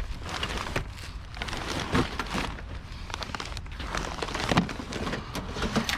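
Rustling with scattered irregular knocks and clicks: objects being pulled about and shifted by hand.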